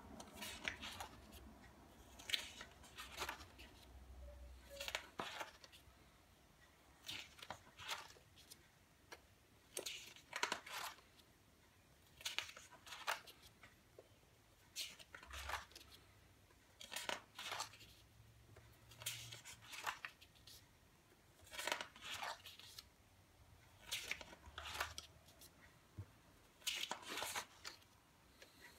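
Pages of a spiral-bound photobook being turned by hand, each turn a short, faint papery swish, often in quick pairs, every two to three seconds.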